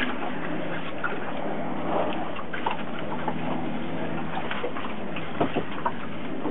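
Water sloshing and lapping against the hull of a small fishing boat, a steady wash of noise with a few light knocks.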